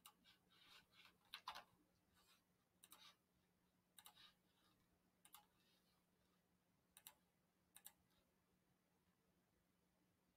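Faint, scattered clicks of a computer mouse and keyboard, about eight in all, over a faint steady low hum.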